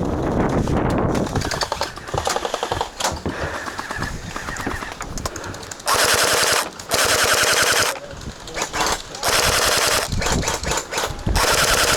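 Electric gel blaster firing on full auto in rapid rattling bursts, the loudest ones about a second long in the second half.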